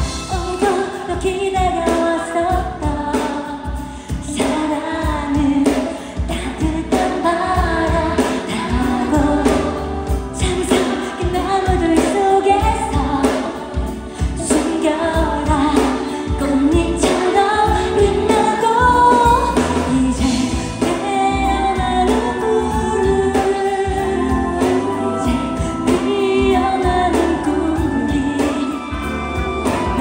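Live K-pop performance: a woman singing into a microphone over loud band and backing music with a heavy, steady bass beat.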